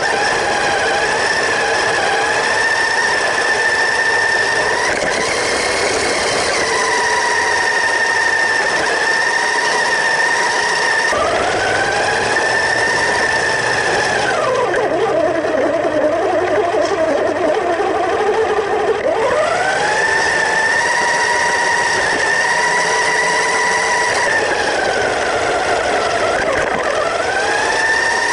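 Electric motor and gearbox of a WPL K-1 1:12 4x4 RC truck whining as it drives, heard up close from a camera mounted on the truck. The whine mostly holds one high pitch, drops lower for a few seconds in the middle as the motor slows, then glides back up, with shorter dips and rises near the start of the second third and near the end.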